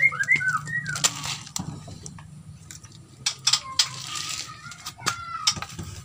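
Nias hill myna giving gliding whistled calls in the first second and again about five seconds in, amid many short sharp clicks and knocks.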